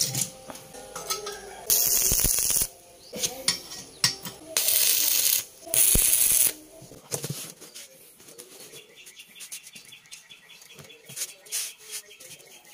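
Electric arc welding of steel brake shoes: three short bursts of steady hissing arc, each about a second or less, with sharp metal clinks in between. After about seven seconds only faint light ticking remains.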